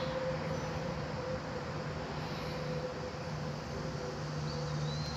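Steady background hum and hiss with a faint constant tone, with no distinct events.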